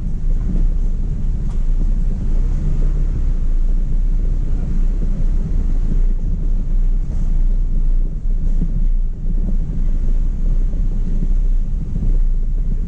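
Hummer H2's V8 running low as the truck crawls over a rough dirt trail, with steady low rumble and wind buffeting the hood-mounted camera's microphone.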